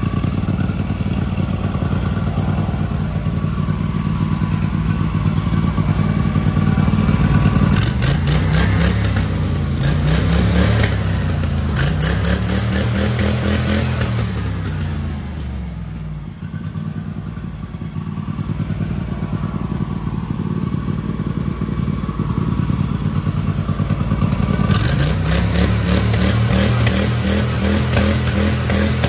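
Honda GX620 20 hp V-twin engine running through its newly fitted muffler, blipped by hand at the throttle linkage. It runs steadily, is revved up and let back down twice, drops to a low idle about halfway, then is revved up again near the end.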